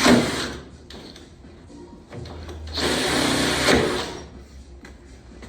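Electric drill boring a hole through a car door for the door handle bar. One run stops about half a second in, and a second run of about two seconds starts a couple of seconds later.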